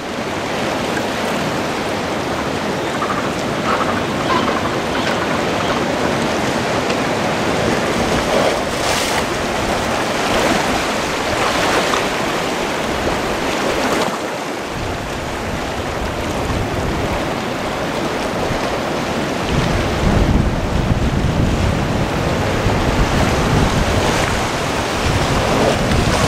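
Sea surf washing ashore with wind. From about two-thirds of the way in, heavy wind rumble buffets the microphone.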